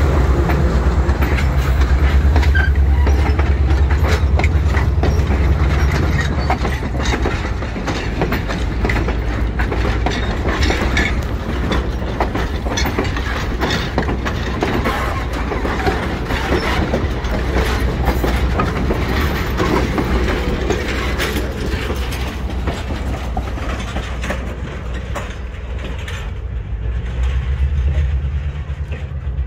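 Passenger railroad cars rolling past close by, their wheels clicking and clattering over the rail joints over a low rumble. The sound eases as the last coach moves off.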